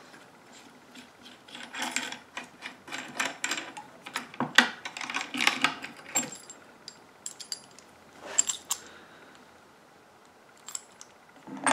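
Steel replica No.4 Mk I (T) scope mount bracket being worked loose and lifted off the Lee-Enfield's side mounting pads: bursts of metallic clicks, knocks and scrapes, busiest in the first half, another short clatter just past the middle and a few clicks near the end.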